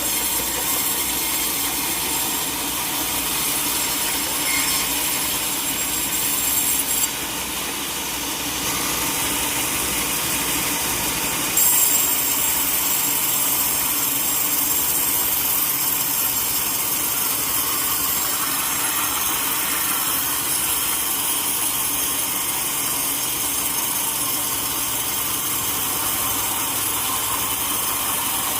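Sawmill saw running steadily through a teak log, a dense, continuous machine noise. About a quarter of the way in the high hiss falls away for a few seconds, then comes back with a brief louder surge.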